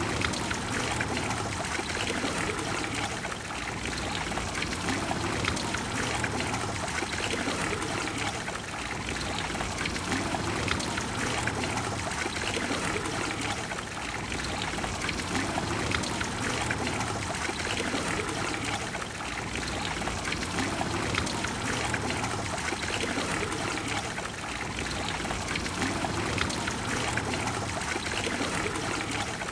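Water of the Trevi Fountain pouring and flowing steadily into its basin, a continuous rushing wash that swells and eases slightly.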